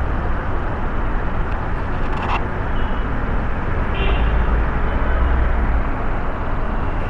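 Steady city street traffic noise through a mini spy camera's small microphone: a continuous rumble and hiss, a little louder about four seconds in, with a few faint short high tones.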